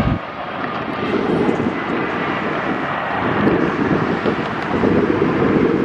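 Twin-engine jet airliner landing: steady rushing engine noise with a faint high whine.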